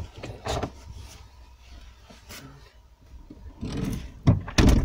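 Clothing and body rubbing and bumping on a car seat and trim as a person climbs into a car, then a car door shutting with two heavy thuds near the end.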